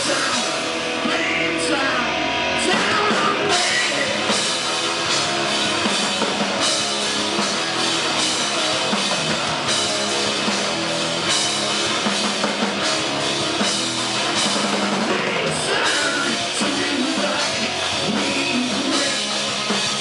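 Rock band playing live and loud: electric guitar through Marshall amplifiers over a hard-hit drum kit.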